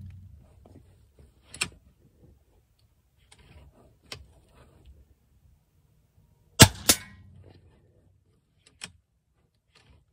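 A .22 Daystate Alpha Wolf Safari HP PCP air rifle fires one shot without a suppressor: a sharp crack about six and a half seconds in, followed a third of a second later by a second sharp report. Fainter single clicks of the rifle's action come about a second and a half in, around four seconds in and near the end.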